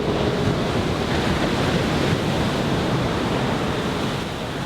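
Ocean surf breaking and washing up the beach: a steady rush that swells to a peak and eases off toward the end.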